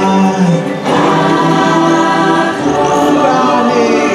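Choir singing in the ride's music soundtrack, several voices holding long notes together, with a new phrase coming in about a second in.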